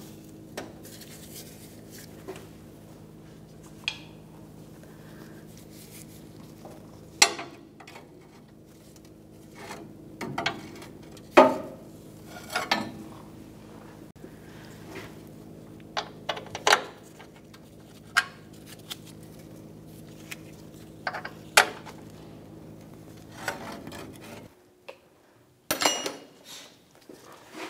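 Irregular metal clinks and clanks of a pry bar and awl knocking against the steel coil spring and its retainer bracket while the bracket is lined up with its bolt hole. A steady low hum runs underneath and cuts off suddenly near the end.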